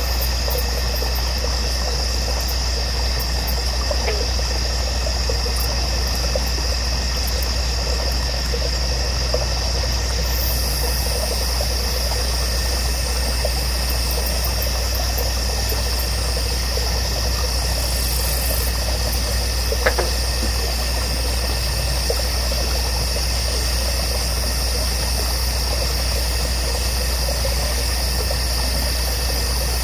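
Steady, unchanging drone: a constant low rumble with steady high-pitched hum bands over it, and a single faint click about twenty seconds in.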